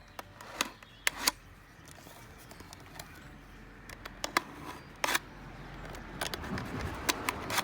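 Thin plastic bottle crackling and clicking as a sharp knife is worked into it to cut holes, in scattered sharp clicks with a rougher rustling stretch near the end.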